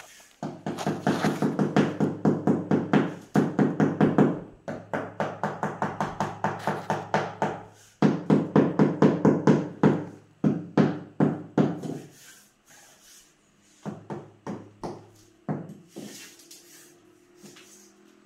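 Rubber mallet tapping wood-look ceramic floor tiles to bed them level in fresh mortar: runs of rapid knocks, several a second, with short breaks between runs, thinning to a few scattered taps past the middle and stopping shortly before the end.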